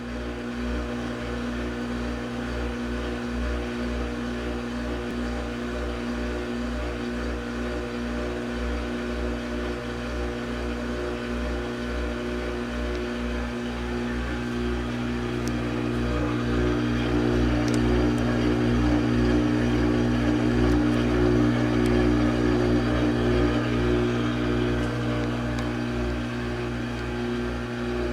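Samsung washing machine's drain pump running as water is pumped out: a steady, consistent grinding hum with a fluttering low rumble of vibration, getting louder a little past halfway and easing near the end. The owner finds the pump motor excessively loud for a new machine.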